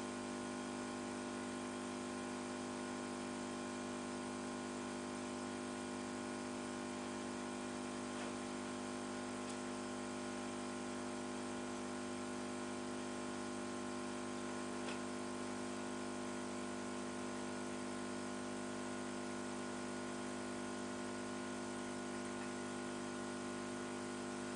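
Small electric air pump running with a steady hum and a light hiss while it slowly inflates a latex balloon.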